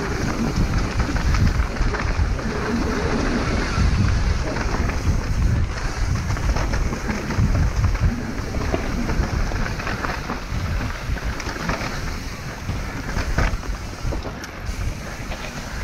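Wind buffeting a clip-on microphone on a mountain bike speeding down a dirt trail, over the steady rumble of tyres and the bike rattling on rough ground, with a few sharp knocks from bumps.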